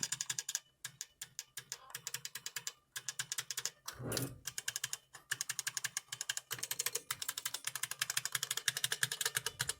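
Rapid key presses on a Brand New Model F keyboard, its buckling-spring keys clacking many times a second in uneven runs with short pauses.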